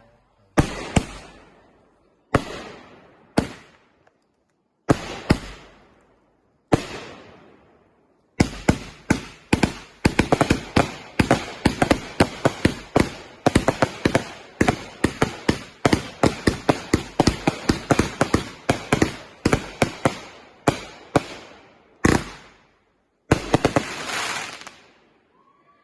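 Fireworks going off. Single loud bangs with fading tails come every second or two at first. About eight seconds in, a rapid barrage of bangs runs for roughly fourteen seconds, and two last bangs follow near the end.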